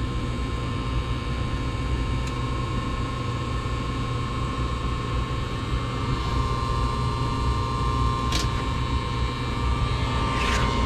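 Gas furnace firing: the burners are lit and make a steady rushing hum, while the blower motor stays off. This is a no-heat fault. Two faint clicks come late on.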